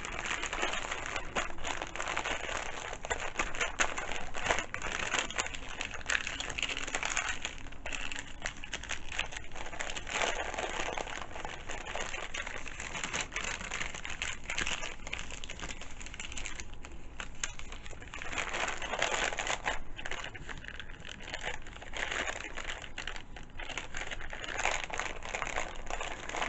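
Wrapping paper being handled and folded around a package: continuous paper rustling and crinkling with many small crackles.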